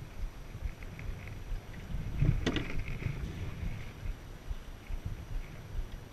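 Wind noise on the microphone and water washing along the hull of an Enterprise sailing dinghy under way, with a single sharp knock about two and a half seconds in.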